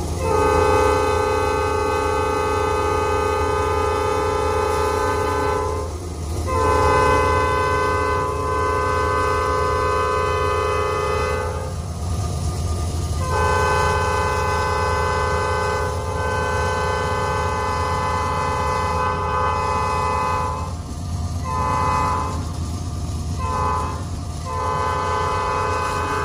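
Norfolk Southern diesel locomotive's multi-chime air horn sounding a chord for a grade crossing: three long blasts of about five to seven seconds each, then a short blast, a very short one and a final blast of about two seconds. A steady low rumble runs underneath.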